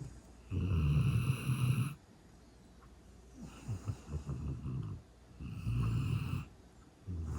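Snoring from a sleeping man and hound dog: three long snores about two and a half seconds apart, the middle one softer.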